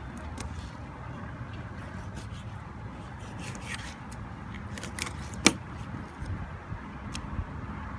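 Fillet knife working through a Key West grunt on a hard cutting board: scattered small clicks and scrapes as the blade runs along the bones, with one sharp click about five and a half seconds in. A steady low rumble lies under it.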